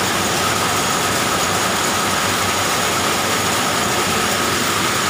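Belt-driven polyester thread twisting and winding machines running: a steady mechanical din with a constant whine.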